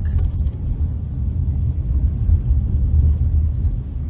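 Steady low rumble of a car being driven slowly, engine and road noise heard from inside the cabin.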